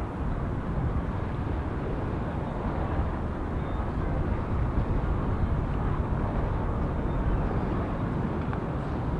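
Steady low outdoor rumble, a constant noisy drone with no distinct events.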